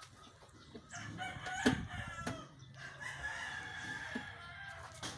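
A rooster crowing and clucking in the background, with one long held crow in the second half. Two sharp clicks come about a second and a half and two seconds in.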